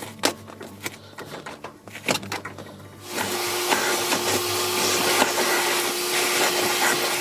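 A few clicks and knocks of handling, then about three seconds in a small electric motor starts and runs steadily with a constant hum for about four seconds.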